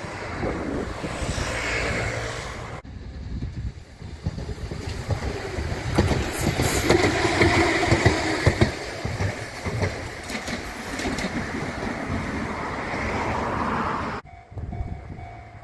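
A train running past on the rails, its wheels clicking over the rail joints, loudest in the middle; the sound changes abruptly about three seconds in and again near the end.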